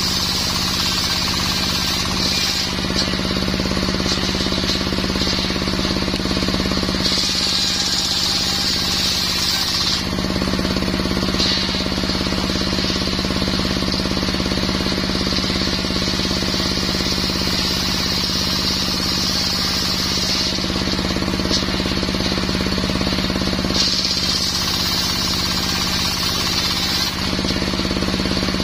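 Circular wood saw driven by a brush-cutter engine, running steadily as it saws mahogany. A higher whine comes and goes over the engine's buzz in stretches of a few seconds.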